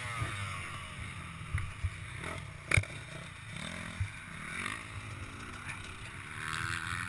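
Dirt bike engine running at low revs, the note wavering, with one sharp knock almost three seconds in.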